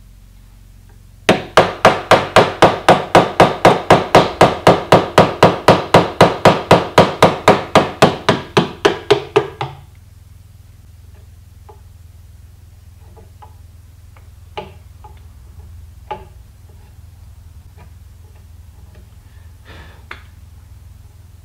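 Wooden mallet striking a wood chisel as it cuts into a rifle stock: a steady run of sharp blows, about three to four a second for some eight seconds, each ringing briefly. After that come a few faint, scattered knocks.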